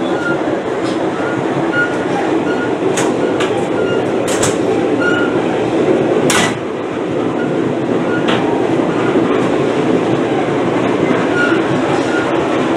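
Passenger train car rolling at speed, heard from aboard: a steady rumble of wheels on rails, with a few sharp clacks.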